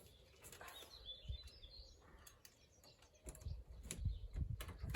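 Faint scattered clicks and light knocks from the BMW E46 as the ignition key is worked, growing busier in the last second or two before the engine cranks. A bird chirps faintly about a second and a half in.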